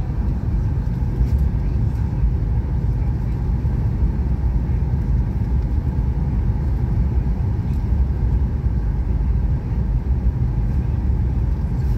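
Steady low rumble of engine and airflow noise inside the cabin of a Boeing jet airliner descending on approach.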